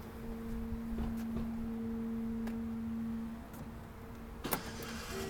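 A steady low electronic warning tone from the Suburban's rear park assist, held for about three seconds: the solid tone that means an object is very close to the rear bumper. A sharp click follows near the end.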